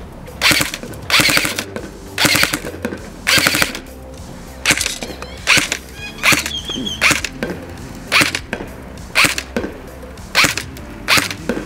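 Tokyo Marui MP5SD6 electric airsoft gun firing about a dozen short full-auto bursts, roughly one a second. Each burst is a quick rattle of the gearbox cycling several shots.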